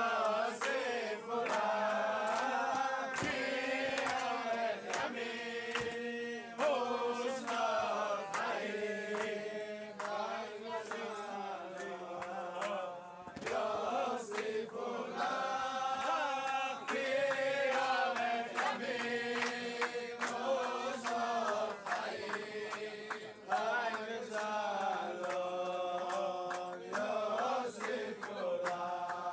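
A group of men singing a song together in unison, long held notes moving up and down in pitch.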